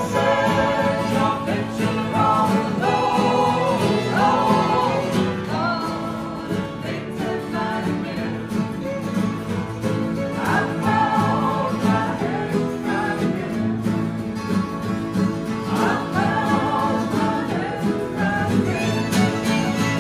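An acoustic country band playing: acoustic guitars and a mandolin strum a steady rhythm, and a brighter melody line comes in and out in phrases of a few seconds.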